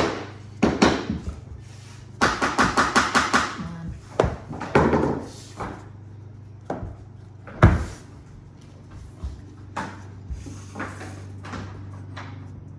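Click-lock luxury vinyl floor planks being fitted by hand: knocks, clicks and slaps as boards are angled into the joint and pressed down onto the subfloor. A quick run of about ten taps comes about two seconds in, and one heavier, deeper thump near the eight-second mark, over a low steady hum.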